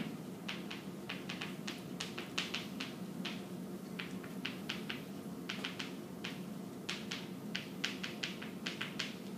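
Chalk tapping on a chalkboard as words are written: a string of short, irregular clicks, a few per second, over a steady low room hum.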